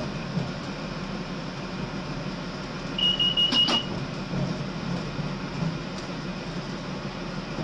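Steady running noise inside the cab of a Class 43 HST power car, with a short burst of high-pitched pulsing beeps about three seconds in.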